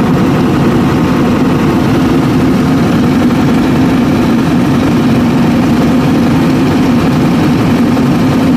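Scania R580's V8 diesel engine running at a steady speed, heard up close at the engine.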